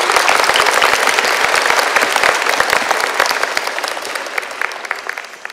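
Audience applauding at the end of a children's song, dense clapping that thins out toward the end into a few scattered claps.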